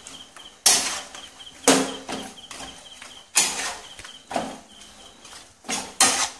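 A steel spoon scraping and knocking against a pan while chicken pieces are stirred and tossed, about six sharp strokes a second or so apart.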